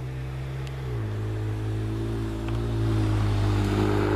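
Ford Explorer Sport's V6 running through an aftermarket Borla exhaust as the SUV drives toward the listener. The steady exhaust note dips slightly in pitch about a second in, then grows louder as the vehicle approaches.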